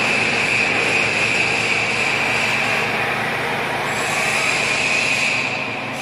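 Toshiba TMD-13 CNC vertical boring mill running, a steady mechanical noise with a high whine that fades for a couple of seconds in the middle and then returns.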